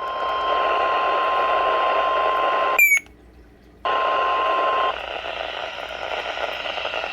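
A NOAA Weather Radio single-pitch warning alarm tone (1050 Hz) heard through a radio receiver over steady static hiss. About three seconds in, the signal drops out for a second with a short chirp. The tone then resumes and stops about five seconds in, leaving only the hiss.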